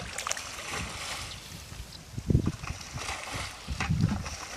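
Muddy shallow water sloshing and splashing, with two heavier low sloshes about two and four seconds in.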